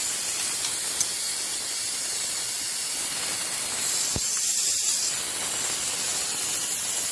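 A steady hiss, with a faint click about a second in and a single sharper knock about four seconds in, as a wrench works a nut welded onto a broken stud bolt in an engine block.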